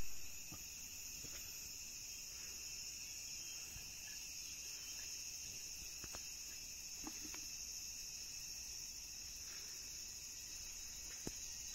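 Insects chirring in a steady, high-pitched drone, with a few faint clicks.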